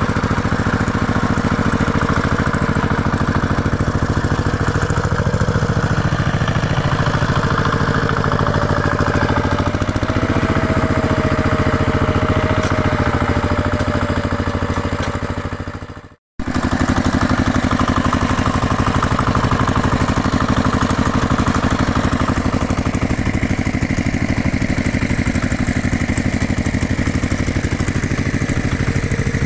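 Heavy equipment engine running steadily. About two-thirds of the way through it fades out and drops away briefly, then resumes.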